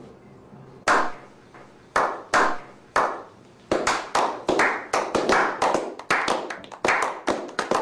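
A slow clap by a small group: single hand claps about a second apart, speeding up from about four seconds in into quick, overlapping clapping.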